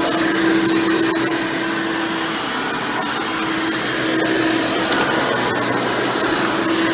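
Hoover Elite Supreme upright vacuum running with its upgraded 20-blade-fan motor and single-row brush roll, as it is pushed over carpet while cleaning. A steady rushing sound, with a hum that fades in and out.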